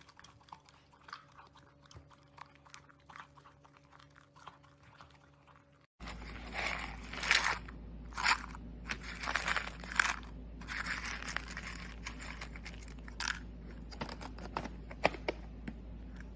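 A Shiba Inu crunching dry kibble from its bowl, faint and in small clicks. About six seconds in this gives way to louder rattling of dry kibble in a clear plastic cup, in several bursts with sharp clicks, as the cup is shaken and emptied.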